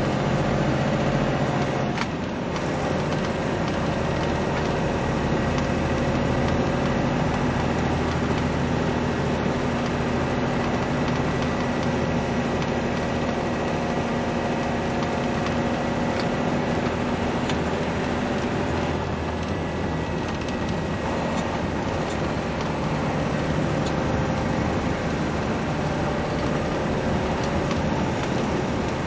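Steady engine drone and tyre hiss on a wet road, heard from inside a moving vehicle's cab, with one brief knock about two seconds in.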